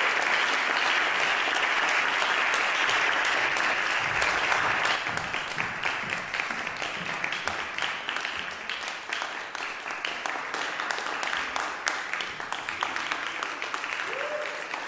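Audience applauding in a hall: dense clapping at first, thinning about five seconds in to looser, scattered claps that slowly fade.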